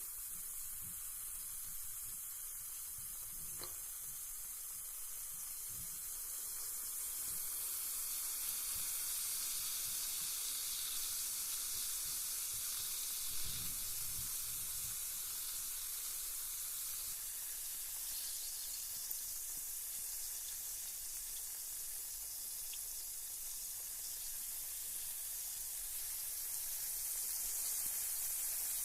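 Carbonated bath bomb fizzing in bath water: a steady fine hiss of bubbles that grows a little louder several seconds in, with one faint low bump about halfway through.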